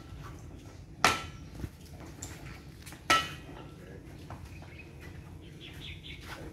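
Two sharp metallic clanks with a short ring, about two seconds apart, from aluminium scuba tanks and gear being knocked while a BCD is fitted onto a tank.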